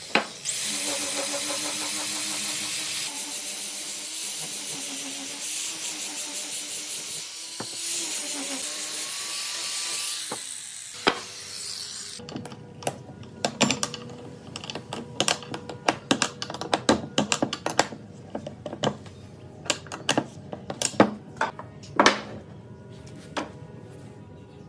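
A handheld power tool running and cutting into wooden blocks for about eleven seconds, its motor pitch wavering under load. Then it stops and a long series of sharp knocks and clicks follows, wood and tools being handled on the bench.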